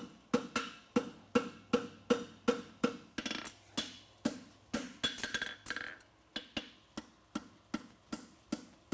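Hand hammer striking red-hot steel on an anvil at about two to three blows a second, each blow ringing briefly. The blows grow lighter and more irregular in the middle, then pick up again.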